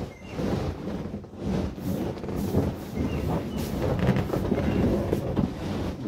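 Large vinyl inflatable wolf ride-on (Puffypaws Timber Wolf) being bounced on: its air-filled vinyl creaks, rubs and rumbles in uneven swells. A few short, faint squeaks come through.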